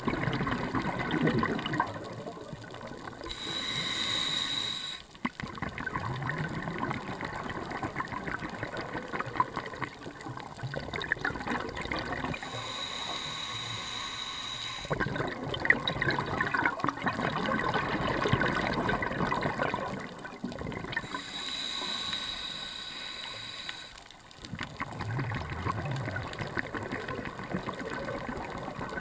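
Scuba diver breathing through a regulator underwater: three hissing inhalations with a thin whistle in them, about nine seconds apart, each followed by a long bubbling exhalation.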